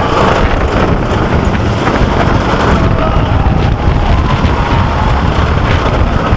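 Wooden roller coaster train running the course at speed: loud wind rushing over the head-mounted microphone over the constant clatter and rattle of the cars on the wooden track, with faint rider screams in the background.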